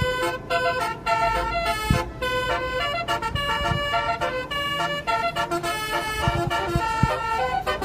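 Telolet musical bus horn playing a melody of quick stepped notes.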